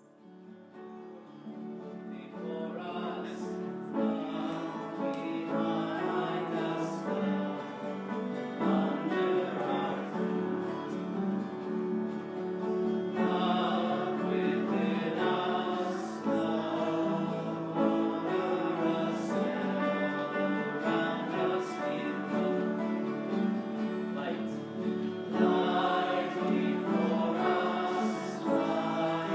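Congregation singing a song together with musical accompaniment, swelling in over the first few seconds.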